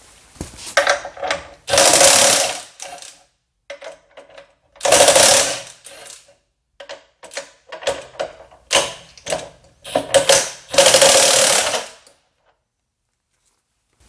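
RIDGID 18-volt brushless half-inch high impact wrench hammering in bursts: three runs of about a second each and several short blips between them.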